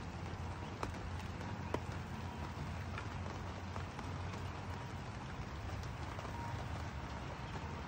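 Steady rain falling on a wooden deck and outdoor furniture: an even hiss with a few sharp drip ticks, the strongest nearly two seconds in.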